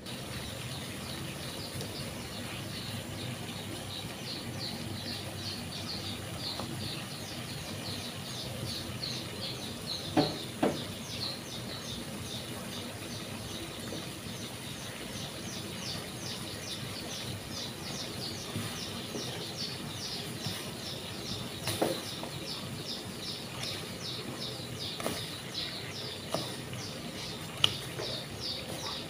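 Birds chirping steadily, short high chirps repeated about three times a second, with a few sharp knocks cutting through, two close together about a third of the way in and two more later.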